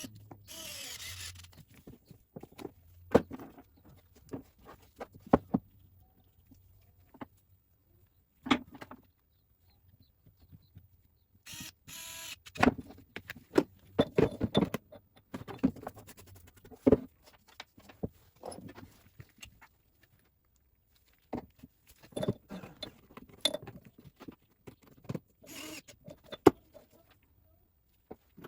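Hands working on spray-pump parts and tubing: scattered clicks, knocks and short scrapes, with two brief quiet pauses.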